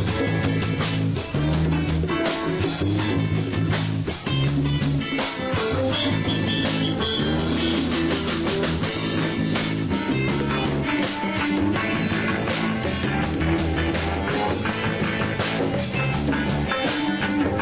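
Rock music with electric guitar, bass and drum kit, playing loud and steady with a regular beat.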